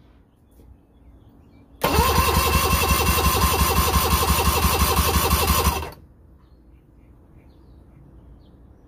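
Electric starter cranking an early-1980s Mercury 800 four-cylinder two-stroke outboard with the spark plugs out, for a compression test. For about four seconds, starting about two seconds in, it spins up with a rising whine and then turns over with a steady rhythmic chug. It cuts off abruptly.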